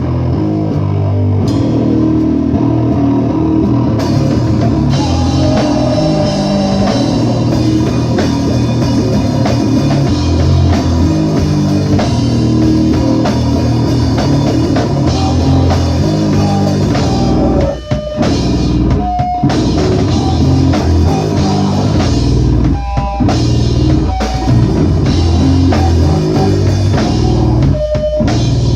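Live rock band playing loud: drum kit and guitar, with several short stops in the music in the second half.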